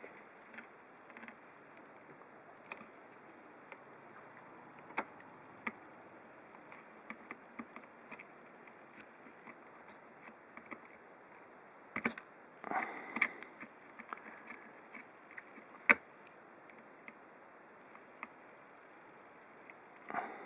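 Faint scattered clicks and taps of a soldering iron working at a small SMD microswitch on a laptop circuit board, over a steady low hiss. A louder cluster of clicks and scraping comes about twelve seconds in, and a single sharp click near sixteen seconds.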